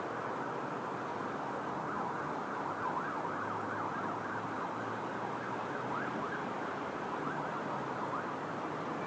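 Emergency-vehicle siren, its pitch sweeping rapidly up and down about three times a second. It comes in about two and a half seconds in and fades near the end, over a steady background rumble with a low hum.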